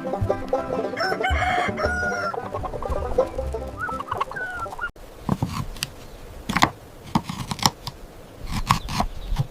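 Chickens clucking and a rooster crowing for about the first five seconds, then an abrupt change to a scattered series of sharp taps and knocks.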